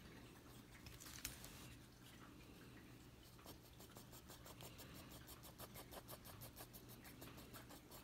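Faint scratching of a pencil on paper: short back-and-forth shading strokes, coming quickly and evenly in the second half, with a single click about a second in.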